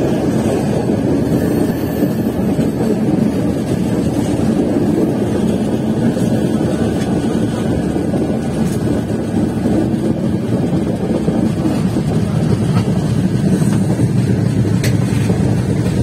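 Passenger train running along the track, heard from aboard: a steady low rumble of wheels and carriage, with a few faint ticks.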